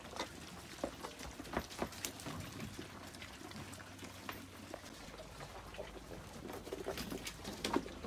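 Goat kids eating cooked feed from bowls: irregular slurping and munching with many small clicks and knocks, as their muzzles push against a steel bowl.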